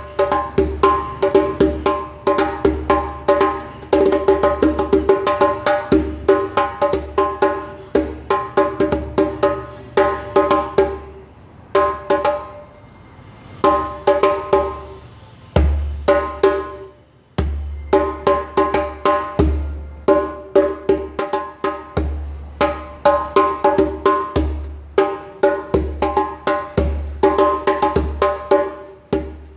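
Djembe with a chicken-skin head played by hand: quick runs of ringing, clearly pitched slaps and tones mixed with deep bass strokes, with two short pauses around the middle.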